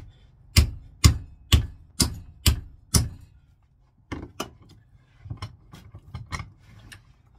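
Lump hammer striking a grey polypropylene catapult fork clamped in a vise: about seven hard blows, roughly two a second, and the plastic does not break. Then come a few lighter knocks and clicks as the fork is handled in the vise.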